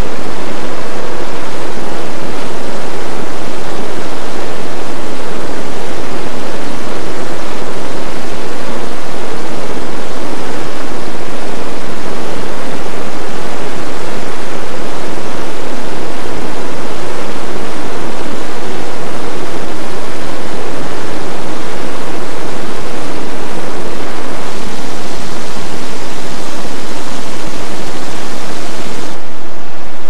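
Monsoon-swollen cave river gushing: a loud, steady rush of water.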